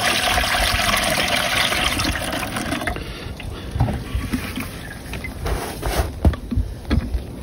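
Maple sap poured from a plastic sap bucket through a funnel into a plastic water jug: a steady gush of liquid that stops about three seconds in. A few light knocks follow.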